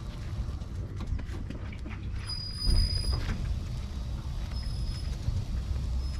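Light aircraft rolling slowly on its tailwheel over concrete while moved by hand, engine off: a low rumble from the tail with scattered clicks and knocks, and a short high squeak a little over two seconds in.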